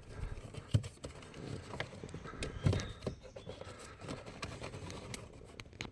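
Scattered knocks, clicks and scrapes of hands working a cabin air filter out of its housing behind the glovebox, with two louder thumps, about a second in and near three seconds.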